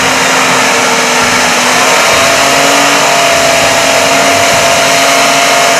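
Off-road SUV's engine held at high revs as the vehicle works through deep mud, a loud steady drone with a slight rise in pitch about two seconds in.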